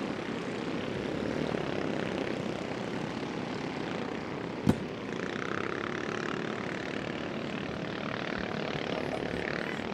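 Engines of a pack of junior off-road race karts running steadily as they race around a dirt track. A single sharp knock comes about four and a half seconds in.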